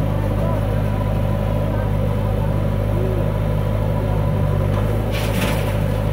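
Diesel engines of a JCB 3DX backhoe loader and a Mahindra tractor running steadily at low revs. About five seconds in, a brief rushing clatter as a bucketload of soil drops from the backhoe into the tractor's trolley.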